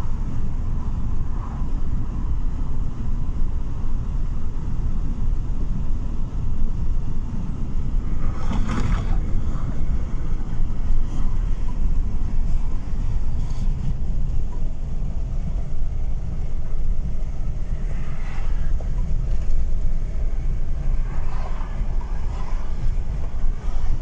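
Steady road and wind noise inside a Fiat car cruising at speed, a constant low rumble, with a brief louder rush about nine seconds in.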